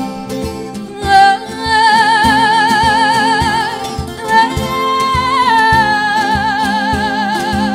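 A woman singing fado, holding two long notes with wide vibrato, the second stepping down in pitch partway through. Underneath, Portuguese guitar and other plucked strings with percussion keep a steady beat.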